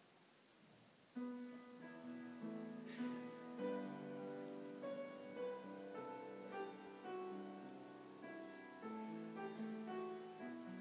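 A keyboard instrument starts playing about a second in: chords of held notes, changing every second or so.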